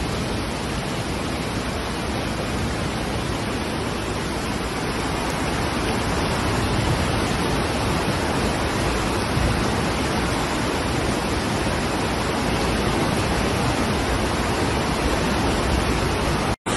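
Steady rushing of a flood-swollen river racing through a concrete channel, mixed with heavy rain.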